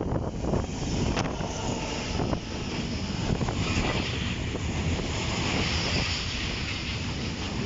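Train rumbling past on the track, a steady rolling noise with a few sharp wheel clicks near the start and wind buffeting the microphone.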